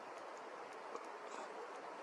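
Faint, steady outdoor background hiss with a few tiny ticks scattered through it.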